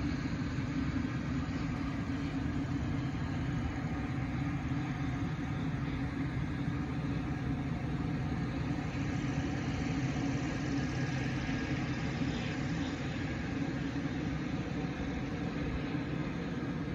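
Steady low engine hum with a few held tones, running evenly at idle.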